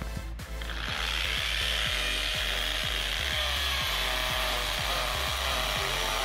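Bosch power drill boring a hole for a dynabolt wall anchor, running steadily from about a second in. Background music with a steady beat plays underneath.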